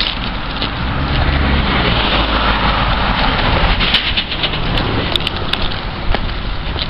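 Street traffic: a car passing on a wet, slushy road, its tyre noise and low engine rumble swelling about a second in and easing off after about four seconds.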